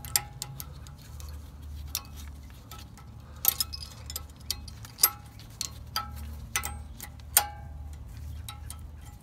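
Stamped steel brake-pad hardware clips being pressed and snapped into a 2008 Honda Accord's front caliper bracket: scattered sharp metallic clicks and clinks, a few with a short ring, over a steady low hum.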